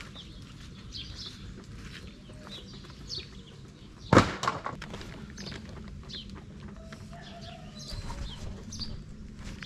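Birds chirping again and again in short high calls, with a sudden loud knock and short rattle about four seconds in.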